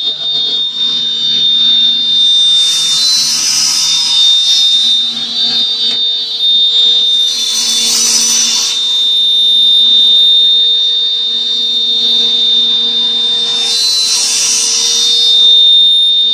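Electric bamboo toothpick sharpening machine running with a steady high whine and hum. Three times, a louder grinding hiss swells up as a batch of bamboo sticks is carried through and their ends are ground to points.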